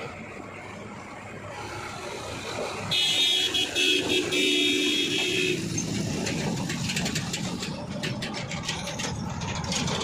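A vehicle horn sounds for about two and a half seconds, starting about three seconds in, over the steady running of road-vehicle diesel engines as a JCB 3DX backhoe loader drives along the road. In the later seconds a rapid rattling of clicks joins the engine noise.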